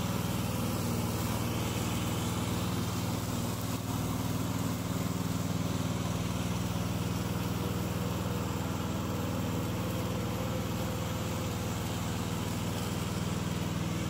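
Petrol engine of a tracked remote-control slope mower running steadily as the mower cuts through tall grass.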